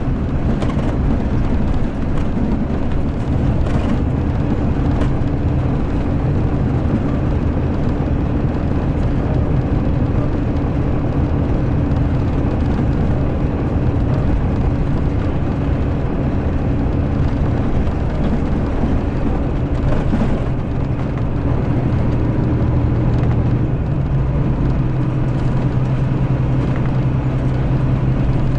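Mercedes-Benz O-500RS coach's diesel engine running steadily, heard from inside the passenger cabin with a low rumble. A deeper engine hum grows stronger in the last few seconds, with a few faint clicks and rattles along the way.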